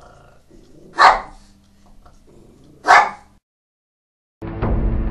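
A dog barking twice, two seconds apart, each bark short and sharp. Music begins near the end.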